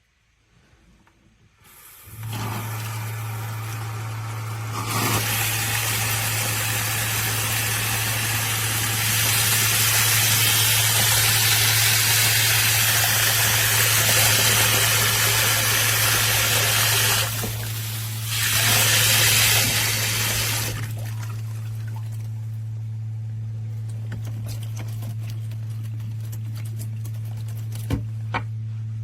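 Water running through a faucet sprayer shower head, starting about two seconds in with a steady low hum beneath it. The spray gets louder around five and nine seconds, dips briefly, then settles quieter about twenty seconds in.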